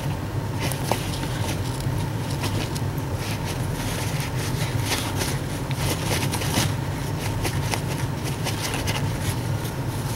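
Paper towel rubbed and dabbed against a plastic action figure, blotting off excess oil wash: irregular soft rustling and crinkling. A steady low hum runs underneath.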